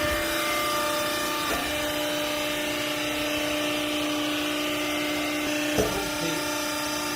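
Hydraulic textile baler's power unit running with a steady hum, with a single knock a little before the end.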